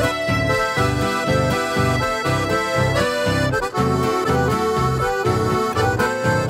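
Traditional gaúcho folk music played on a button accordion, sustained chords over a steady rhythmic bass, with an acoustic guitar accompanying.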